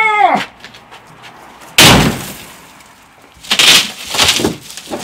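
A sheet of shattered car glass, a broken windscreen-type panel, is slammed and crushed into a plastic wheelie bin. There is one loud crash about two seconds in, then crunching and crackling of breaking glass from about three and a half seconds on.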